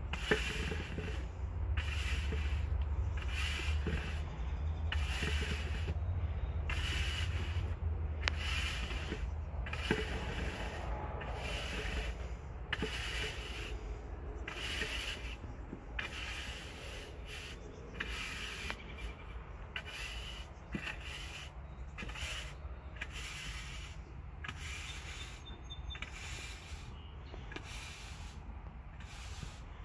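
Push broom sweeping sand across concrete pavers into the joints, in repeated strokes about one a second.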